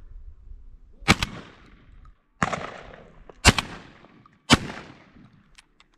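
Shotgun firing four shots about a second apart, each sharp crack trailing off in a short echo, with a few faint clicks near the end.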